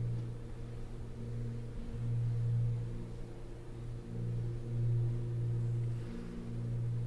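Opening of a brass band piece: one sustained low note from the band's low brass, swelling louder and easing back several times.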